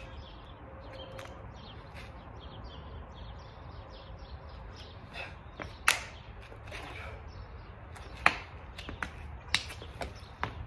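Sharp snaps and slaps from a Tongbeiquan practitioner's fast arm swings and kicks, a handful of them, mostly in the second half and loudest about six and eight seconds in, over a steady low background rumble.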